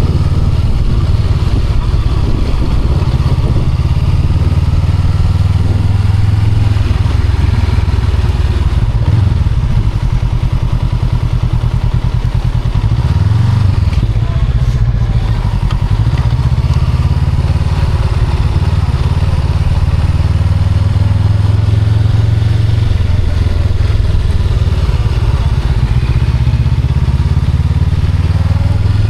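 A Honda Rebel 500's 471 cc parallel-twin engine running while the motorcycle is ridden, under a heavy, steady low rumble.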